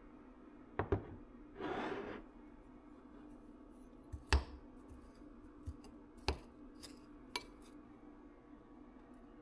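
Kitchen handling sounds: a handful of separate knocks and clinks, with a short scraping rustle about two seconds in, over a steady low hum.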